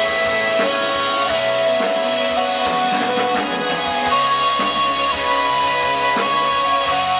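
A live band plays an instrumental passage: a guitar holds long sustained lead notes over a steady drum beat.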